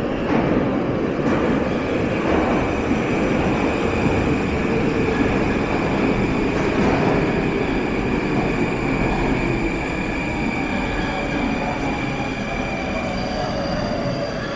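Metro train running into the station: a steady rumble of wheels and motors with a thin whine that falls slowly in pitch as the train slows.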